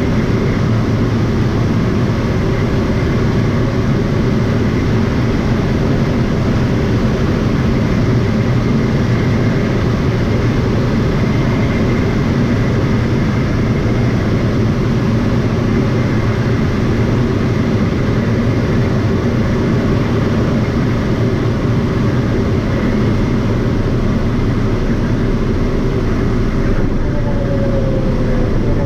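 Steady drone of a small propeller airplane's engine running. Near the end a faint falling tone sounds over it.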